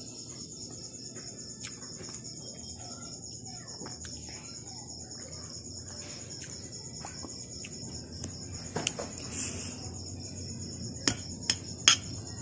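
Steady, high-pitched chirring of night insects, likely crickets, pulsing without a break. A few sharp clinks of a metal spoon against a ceramic plate come near the end.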